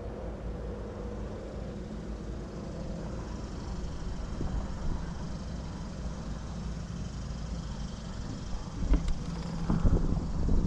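Wind buffeting the microphone as a low, steady rumble over open water, with stronger gusts in the last couple of seconds.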